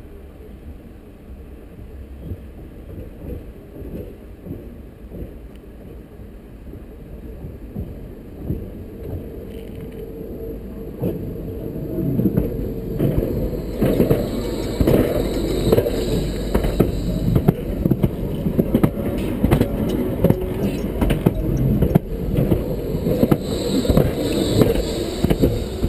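Nottingham Express Transit tram approaching along the track and passing close by, its wheels rumbling on the rails with many sharp clicks, growing steadily louder from about halfway through.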